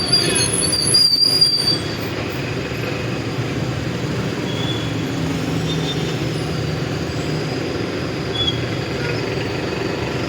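City street traffic: a steady low rumble of passing vehicles, with a high-pitched squeal, like brakes, in the first two seconds.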